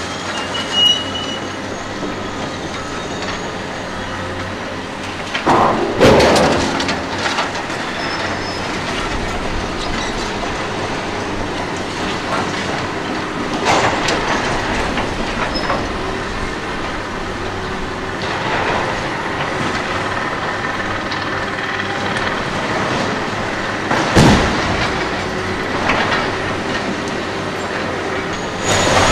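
Cat hydraulic excavators running steadily as their demolition shears tear into the steel frame and walls of a building, with crashes of falling debris, the loudest about six seconds and twenty-four seconds in.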